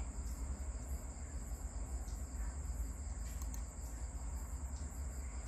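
Steady high-pitched chorus of night insects, crickets, over a low hum, with a few faint clicks.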